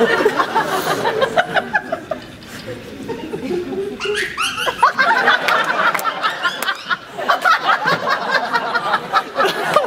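Audience laughing and chuckling, with some voices mixed in. The laughter dips about two to three seconds in and swells again from about five seconds in.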